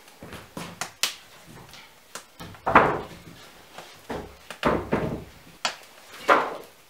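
Old wooden floorboards knocking and scraping against each other as they are lifted off a stack, a string of sharp clatters with the loudest about three seconds in and just before the end.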